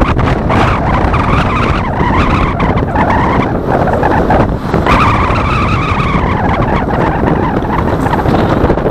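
Strong wind buffeting the microphone: a loud, rough rumble, with a higher rushing tone that swells and fades twice.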